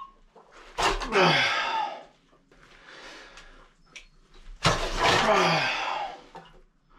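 Two long noisy rushes, each with a pitch that falls away, about a second in and again near five seconds, as a submersible well pump's drop pipe is hauled up out of a cistern by hand.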